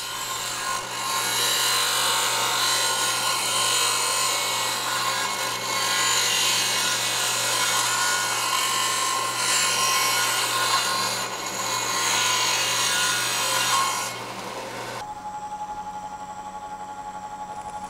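Bench disc sander grinding the corners off a small strip of 1/8-inch aluminum: a steady, rough grinding noise over the motor's hum, swelling and easing a few times as the piece is pressed to the disc. About 15 s in it stops abruptly, giving way to a quieter drill press motor running with a steady whine.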